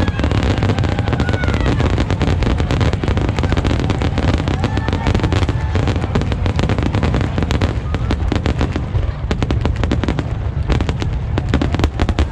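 Fireworks display: a dense, continuous barrage of bangs and crackles over a steady deep rumble, growing busier in the second half.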